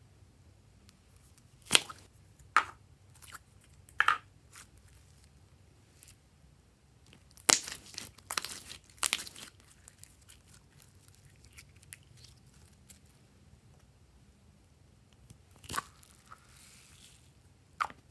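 Glossy slime being worked by hand, letting out scattered sharp sticky pops and crackles, with a quick run of them in the middle.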